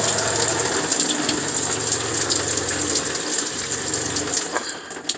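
Stock camper shower head spraying water, a steady hiss, with the camper's water pump humming underneath. The hum drops out briefly about three seconds in and fades near the end.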